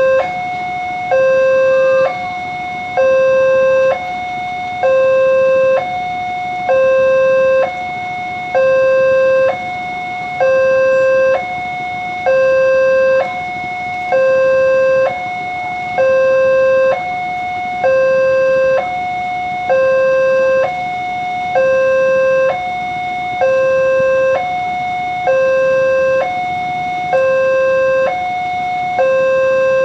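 Railroad level-crossing warning alarm sounding: an electronic two-tone signal alternating steadily between a lower and a higher tone, about one low-high cycle every two seconds. It warns that a train is approaching and the barriers are down.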